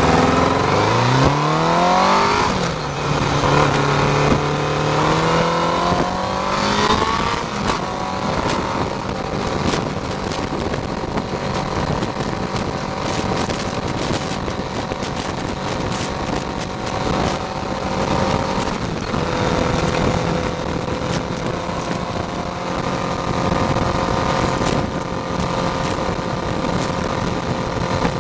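Honda CBR600F2 inline-four engine pulling up through the gears: the revs climb, drop at a gear change about two and a half seconds in, then climb again for several seconds before settling into a steady highway cruise. A constant rush of wind and road noise runs underneath.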